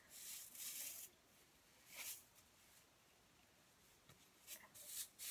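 Faint scratchy rustling of a horse body brush's stiff bristles rubbing against hands as it is handled, in three short bursts: at the start, about two seconds in, and near the end.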